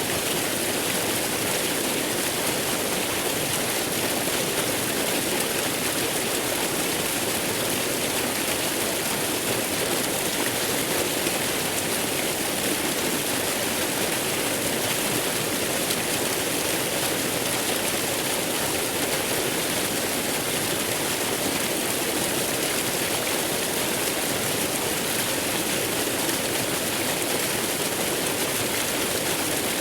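Waterfall: a steady, even rush of falling water, with no breaks or changes in level.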